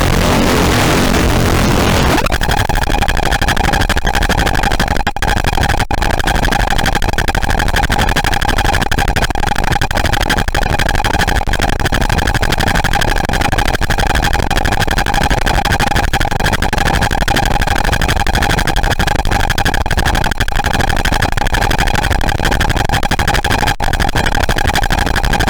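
Caustic FX Snowstorm white-noise distortion pedal putting out a loud, harsh noise drone with heavily distorted bass. About two seconds in, the plain hiss turns into a buzzing drone with a steady tone and stacked overtones riding on the noise, broken by a few brief dropouts.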